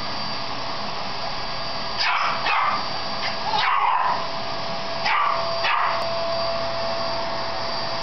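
Canister vacuum cleaner running with a steady whine while a Shih Tzu barks sharply at its hose nozzle about five times, starting about two seconds in.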